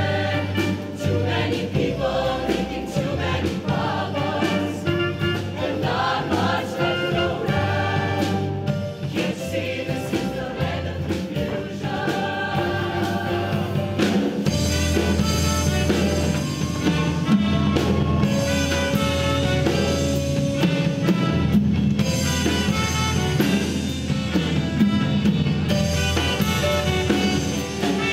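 Mixed-voice show choir singing with instrumental accompaniment and a steady bass line; the music grows fuller about halfway through.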